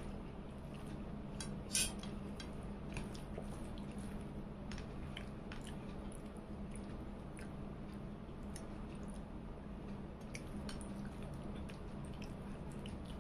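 Fingers squishing and mixing rice with curry on a plate, with soft chewing and small clicks against the plate, one sharper click about two seconds in. A steady low hum runs underneath.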